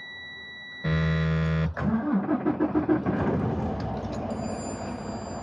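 Truck dashboard low-air-pressure warning buzzer sounds for about a second. Then the truck's diesel engine cranks with a regular pulsing and catches, settling into a steady idle.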